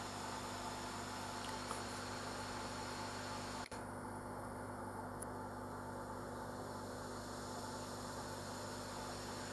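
Steady low mains hum with a faint hiss, broken by a momentary dropout about three and a half seconds in.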